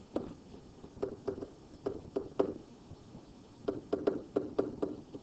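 Stylus tip tapping and clicking on a tablet screen while handwriting: a run of light, irregular taps, pausing for about a second midway.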